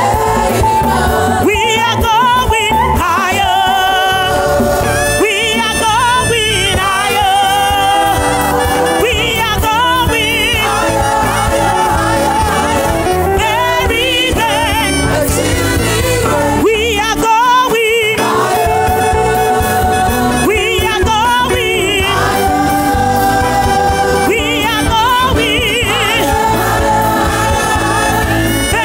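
Gospel praise music: voices singing with vibrato over continuous band accompaniment.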